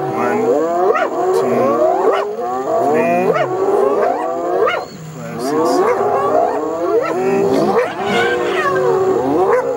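A pack of hyenas calling over one another with many overlapping calls that glide up and down in pitch, mixed with lions growling and snarling as the hyenas mob a lioness and her cubs.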